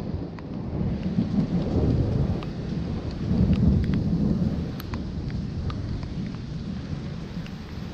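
Thunder rumbling in long rolling swells over steady rain, with scattered sharp raindrop ticks close by.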